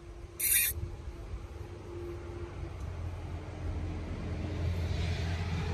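Low, steady rumble of a motor vehicle's engine, slowly growing louder, with a brief hiss about half a second in.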